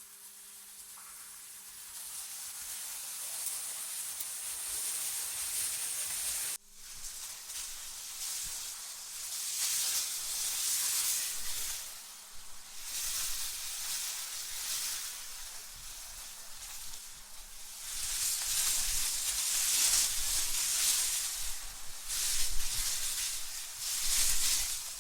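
Generated wind noise: a high, hissing rush that swells and fades in gusts. The sound cuts out abruptly about six and a half seconds in and comes back, and the gusts grow stronger in the second half with a low rumble under them.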